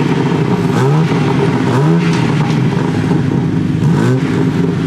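BMW G80 M3's twin-turbo S58 inline-six on its factory exhaust in sport mode, free-revved while parked: the pitch climbs and falls back a few times.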